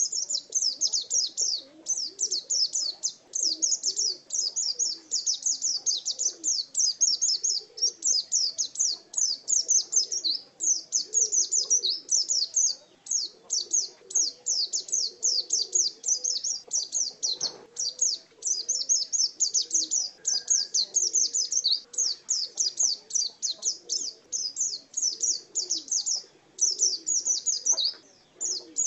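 A pleci dakun white-eye singing 'gacor' in the wild 'ngalas' style: a long, nearly unbroken stream of fast, high twittering notes with only brief pauses.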